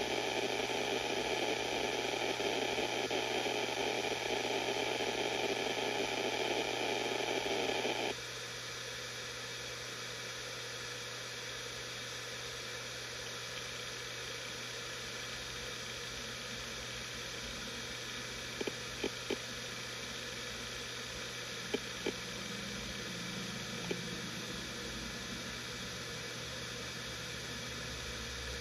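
Samsung SpinPoint F1 HD502IJ 7200 rpm hard drive spinning with a steady low hum, under a louder hiss that cuts off suddenly about eight seconds in. Later come a few faint clicks of the heads seeking.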